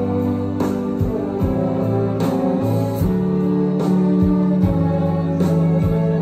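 Student symphony orchestra playing live, the strings holding sustained chords over a steady low beat.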